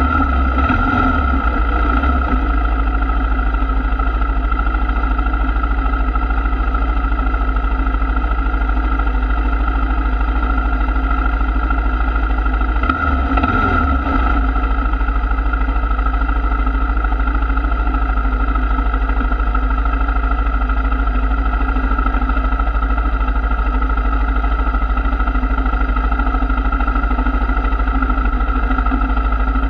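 ATV engine idling steadily, its low hum wavering briefly about halfway through.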